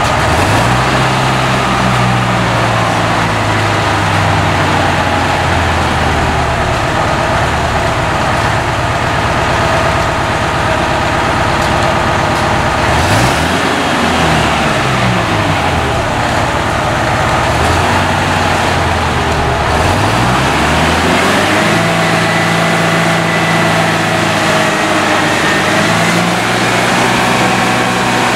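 Heavy diesel engine of a truck crane running under load while it hoists. Twice in the middle, the engine speed drops and climbs back up, then it settles at a steady higher speed.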